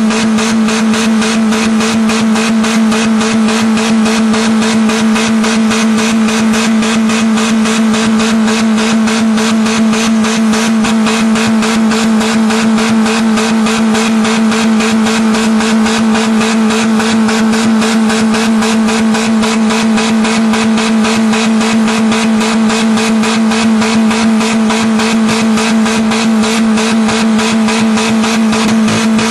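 1995 Geo Metro's 1.3-litre four-cylinder engine held flat out at a steady, very high rev with no letup, being deliberately run to destruction.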